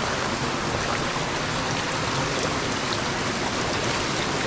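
Steady rushing of a jungle stream, water running over rocks at the crossing point.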